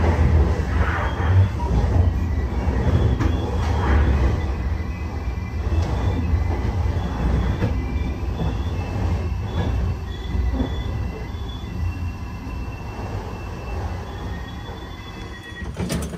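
Passenger train rolling on the rails with a low rumble and thin high squeals from the wheels and brakes, getting quieter as it slows.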